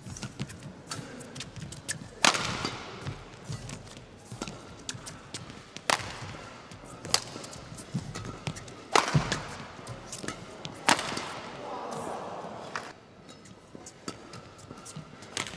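Badminton rackets striking the shuttlecock in a fast rally: sharp cracks a second or two apart, the loudest being hard smashes with a short ring in the hall. Between them, shoe squeaks and footsteps on the court mat.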